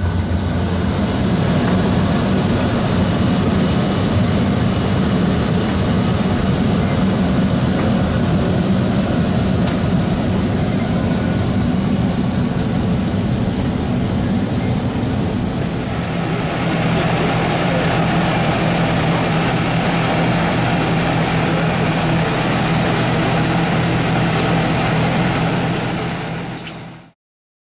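Steady airliner cabin noise inside a parked Boeing 737-700: an even rush of air with a low hum. About halfway through it gives way to a steadier jet-engine drone with a strong high hiss, which cuts off suddenly near the end.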